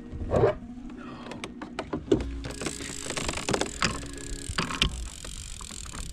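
Fishing gear handled on a plastic kayak: a spinning reel being wound while the rod and the angler's feet knock against the hull. There are a string of sharp knocks and clicks, the loudest about half a second and two seconds in, over a low steady rumble.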